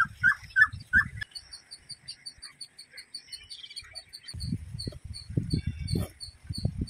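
Birds calling: a few short chirps in the first second, then a quick, even series of high notes, about four or five a second. From about four seconds in, low thumps and rumbles come and go under the calls.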